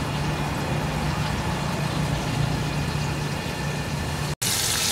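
A steady low motor hum. About four seconds in, the sound cuts out for an instant and a hiss of fish frying in hot oil comes in over it.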